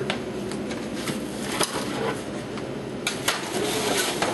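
A metal baking tray and oven rack clanking a few times as a tray of foil-wrapped meat is slid into an oven.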